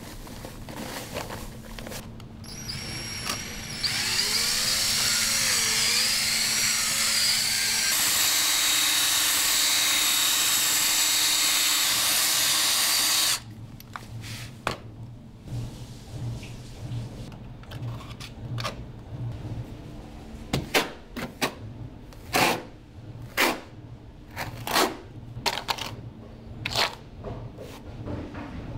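Electric drill with a mixing paddle running in a bucket of cement-based sealing compound for about nine seconds, its speed stepping up partway through, then stopping suddenly. Before it, powder is poured into the bucket, and after it come a series of sharp knocks.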